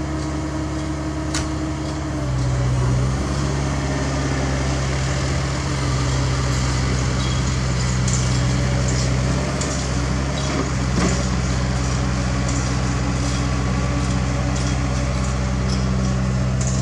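Diesel engine of a CAT 305.5E2 mini excavator running steadily under working load, getting louder about two seconds in, with a dump truck's diesel engine alongside and scattered knocks of soil and bucket.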